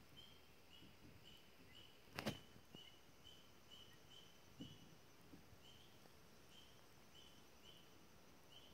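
Near-silent outdoor quiet with faint, short high chirps repeating about twice a second, and a single sharp click a little over two seconds in.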